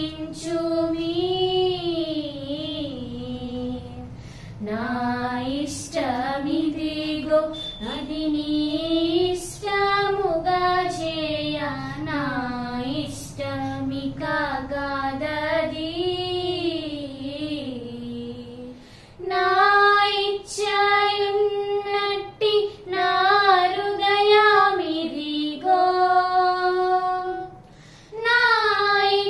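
Two young girls singing a Telugu Christian devotional song together, in phrases of rising and falling melody, the second half louder with longer held notes.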